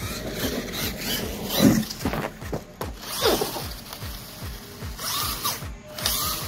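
Losi LMT radio-controlled monster truck driving on asphalt: its electric motor whines up and down in pitch as the throttle is worked, over a rapid, even ratcheting clatter from the drivetrain.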